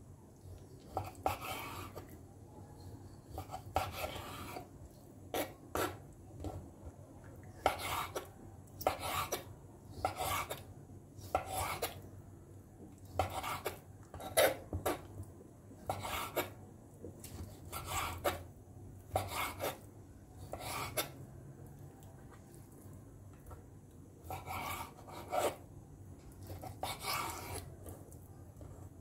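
Kitchen knife slicing raw chicken breast into strips on a wooden cutting board: short scraping strokes of the blade through the meat and against the board, about one a second, with a pause of a few seconds past the middle.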